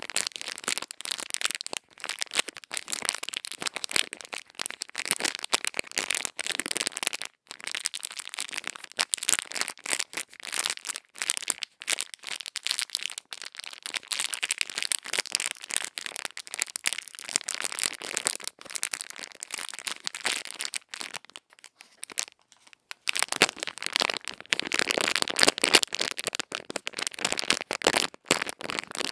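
ASMR ear-cleaning sounds close to the microphone: dense, crisp crackling and scratching with a few brief pauses, growing louder in the last few seconds.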